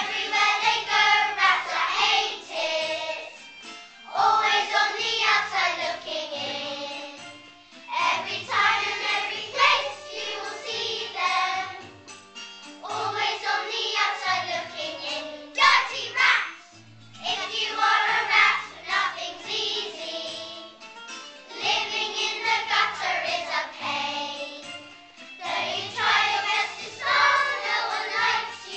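A group of children singing a song together over instrumental accompaniment with a regular bass line, in phrases of about four seconds.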